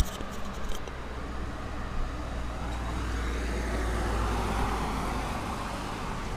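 A road vehicle passing outside: a low rumble that swells to its loudest a little past the middle and fades again.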